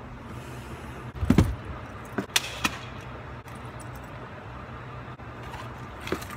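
Luggage being handled at a car's trunk: a heavy thump about a second in, then a few sharp clicks and rattles of a rolling suitcase's handle and tags, with one more click near the end, over a low steady hum.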